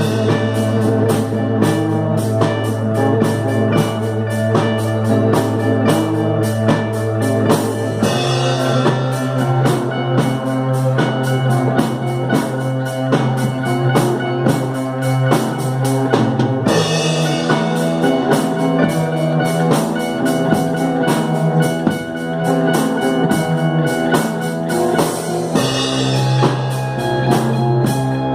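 Instrumental psychedelic rock played by a band: a drum kit keeping a steady beat under electric guitar and synthesizer, over a low held note that shifts about every eight to nine seconds.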